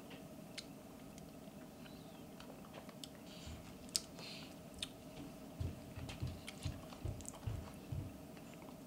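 Faint mouth sounds of a thick milkshake being drunk through a straw from a plastic cup: scattered small clicks, then a run of soft low gulps in the second half.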